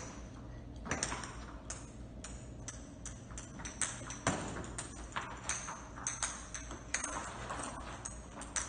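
Plastic practice golf balls thrown and bouncing on a hard tile floor: many light, sharp clicks and clatters at irregular intervals.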